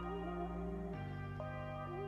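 Background music: slow ambient synth chords with a gliding melody line, the chord changing about a second in.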